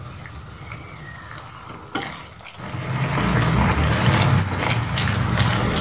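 Tauco sauce in a non-stick wok coming to the boil, bubbling and sizzling while a silicone spatula stirs through it; a single knock about two seconds in, and the bubbling grows louder about three seconds in.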